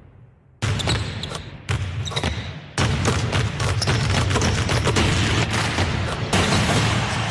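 Arena crowd cheering in edited bursts: the cheer cuts in suddenly and fades, three times, and from about three seconds in it runs on as a steady loud cheer.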